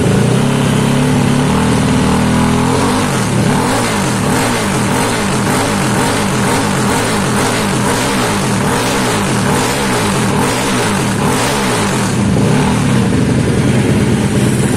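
Yamaha Aerox scooter engine built to a 63 mm bore, running steadily for about three seconds, then revved up and down again and again, about once a second, as the freshly assembled engine is first brought to life.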